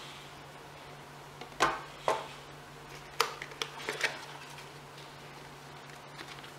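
A few short taps and rustles, about one and a half to four seconds in, as the cardboard and paper contents of a smartphone box are handled. A steady low hum runs underneath.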